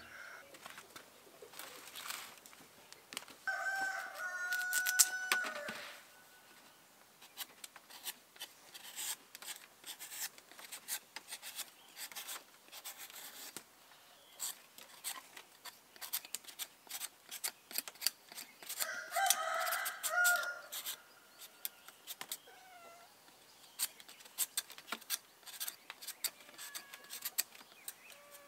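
A rooster crowing twice, about three seconds in and again near twenty seconds, each crow a held call of about two seconds. In between come many small clicks and taps and a few short, faint calls.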